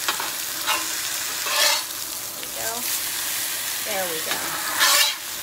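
Sea bass fillets sizzling in hot oil in a cast-iron skillet as they are turned over. The sizzle flares up twice, about a second and a half in and near the end.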